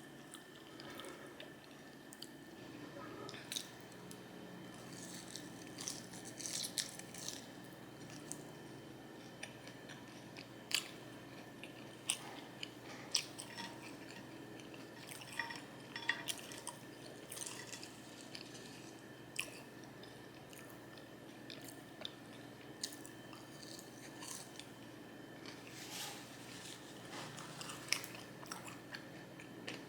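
Close-miked chewing and crunching of food, with irregular soft mouth smacks and clicks. A faint steady hum runs underneath.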